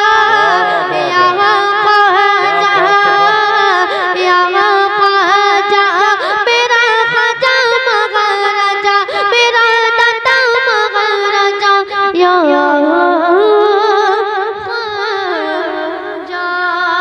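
A boy singing a devotional manqabat into a microphone, drawing out one long ornamented melodic run without clear words, the pitch winding up and down in quick turns. About twelve seconds in the melody drops lower, then climbs back near the end.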